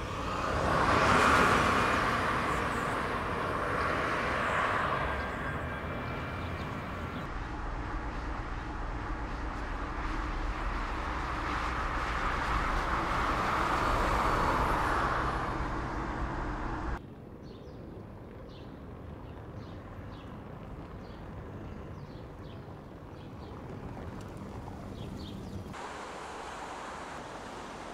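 Tyre and wind noise of the electric Mercedes-Benz B-Class Electric Drive driving by on the road, swelling and fading several times. About two-thirds of the way in it cuts off suddenly to a quieter ambience with a few faint ticks. Near the end comes the hiss of fountain water jets.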